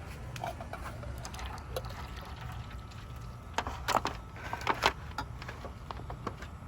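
Hot cooking water being poured off a pot of boiled potatoes, with the lid held on to drain it. A few sharp knocks of lid against pot come about three and a half to five seconds in.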